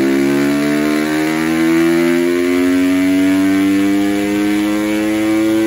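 KTM 250 SX-F's single-cylinder four-stroke engine under load on a roller dyno during a dyno pull, its pitch rising slowly and steadily as the revs climb.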